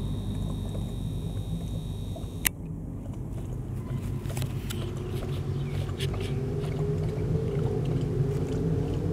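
A steady low mechanical hum from an unseen machine, with one sharp click about two and a half seconds in. From about four seconds in come light, irregular ticks of a hen pecking at the dirt.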